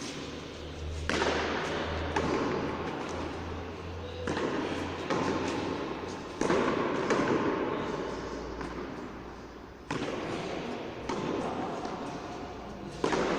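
Frontón ball striking the wall and court in a rally, sharp hits every two to three seconds, each with a ringing, echoing tail, over a murmur of spectators' voices.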